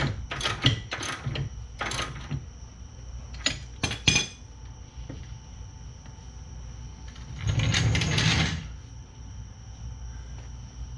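Metal hand tools clinking and clattering: a quick run of sharp clinks over the first couple of seconds and two more about four seconds in, then a brief rustling scrape about eight seconds in.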